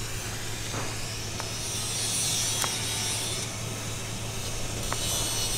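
A plastic spreader scraping over a fibreglass boat hull, working thickened epoxy filler into osmosis blister holes in strokes, over a steady low hum, with a few faint ticks.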